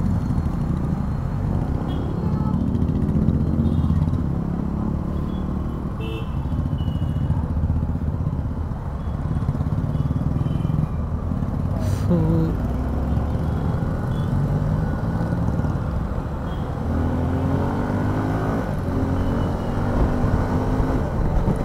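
Motorcycle engine running on the move, with wind rushing over the microphone; the engine note climbs a few times as it accelerates, most clearly near the end.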